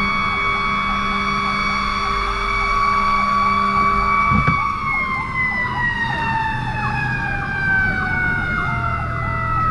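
Fire engine's Federal Q mechanical siren screaming at a steady high pitch, then slowly winding down from about four and a half seconds in. Underneath, an electronic siren wails rapidly at about two cycles a second, with a brief thump about four seconds in.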